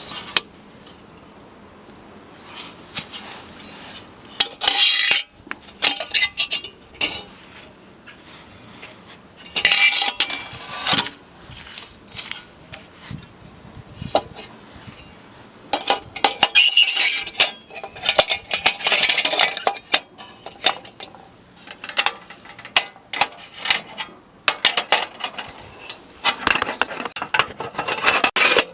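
Metal parts of a 1920s GWR Polkey three-aspect guard's oil lamp being handled, clinking, rattling and scraping in irregular bursts of sharp clicks.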